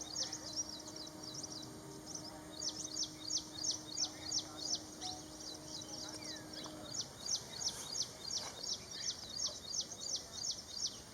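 Ashy prinia calling: a rapid, even run of short, high, sharp notes, each sliding downward, about five a second, with a brief break about two seconds in.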